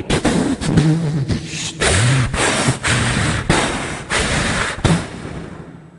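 A man's vocal imitation of a train crashing off the track into a field: a run of loud, noisy rushing bursts broken by sharp clicks, with low hummed tones underneath. It dies away over the last second.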